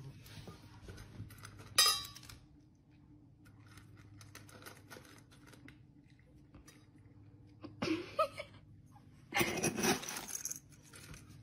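Dry cat kibble being scooped from a plastic storage bin with a small bowl and tipped into a dish, the pellets rattling and clinking against the bowls. There is a sharp clink about two seconds in and a longer rattle of scooping near the end.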